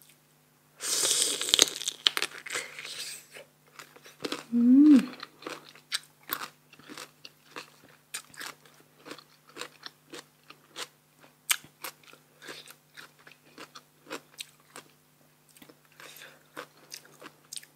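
A crisp sour green mango is bitten into with a loud crunch about a second in, then chewed up close with many small wet crunches. About five seconds in there is a brief voiced 'mm' from the eater.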